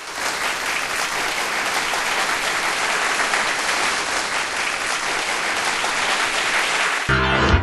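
Audience applauding steadily, dense clapping that begins suddenly at the start; music begins about seven seconds in.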